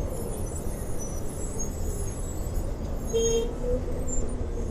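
Traffic and wind noise while riding an electric scooter in city traffic: a steady low rumble, with a brief higher tone about three seconds in.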